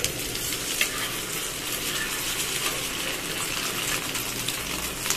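Dal and chicken tikkis shallow-frying in hot ghee on a flat tawa: a steady sizzle full of fine crackling, with a few light clicks.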